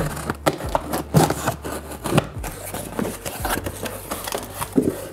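A knife slitting the packing tape on a cardboard box, then the cardboard flaps being pulled open, with a string of short scrapes, rubs and clicks.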